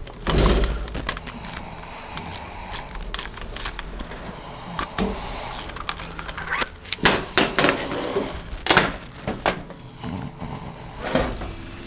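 Clanks, knocks and clicks of metal transmission parts and hand tools being handled during a Ford 5R110W teardown, as the front pump comes out. A cluster of sharper knocks falls between about seven and nine and a half seconds in.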